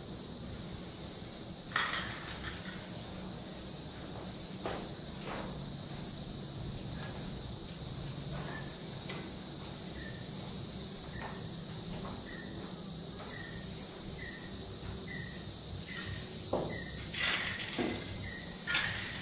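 A steady high-pitched insect chorus. From about halfway a short chirp repeats roughly twice a second, and a few sharp clicks and knocks come through, more of them near the end.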